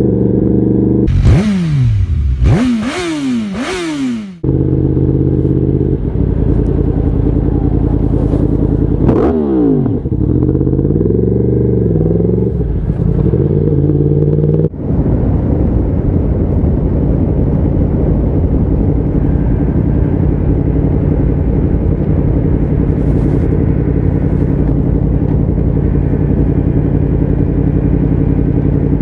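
Motorcycle engine under way: revs rising and dropping sharply several times in the first few seconds, then running at a steady engine speed, with a few brief swings in revs around a third of the way in.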